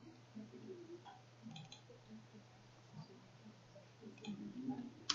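A few faint, scattered clicks from a computer keyboard and mouse, with one sharper click near the end, over a low steady hum.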